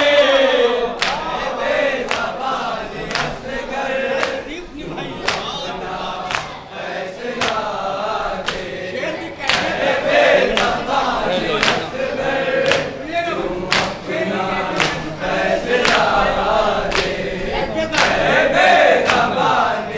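A group of men chanting together in a Shia mourning chant, with sharp hand strikes of matam (chest-beating) about once a second.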